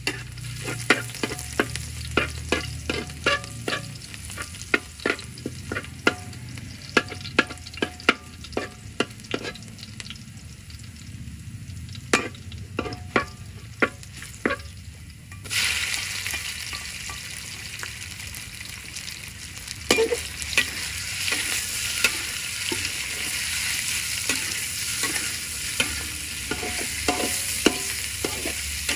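A metal spatula scraping and clicking against a steel wok while a minced paste fries in oil with a light sizzle. About halfway through, a loud, even sizzle starts suddenly as diced raw pork goes into the hot oil, and the spatula scrapes through it again near the end.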